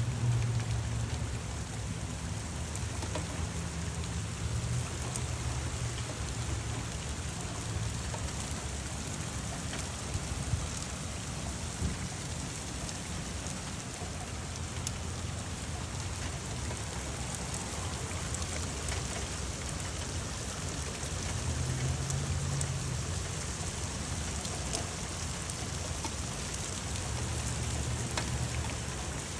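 Heavy rain pouring steadily, with individual drops ticking sharply close by. A low rumble swells near the start, again about two-thirds of the way in, and once more near the end.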